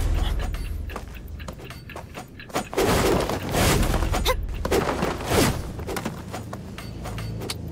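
Martial-arts fight sound effects: a low rumble, then from about three seconds in a rapid run of loud whooshes and sharp hits.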